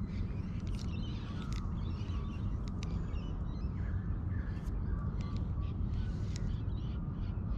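Ducks calling in short, scattered calls over a steady low rumble.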